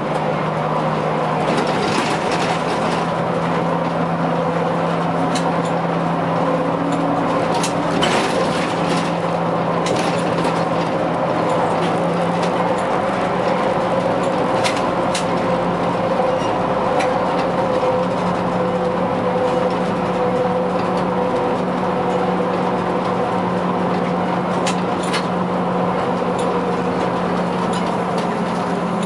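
Škoda 15TrM trolleybus driving, heard from the cab: steady electric-drive hum and whine over tyre and road noise, with a few sharp clicks and rattles. In the second half the whine sinks slowly in pitch as the trolleybus slows.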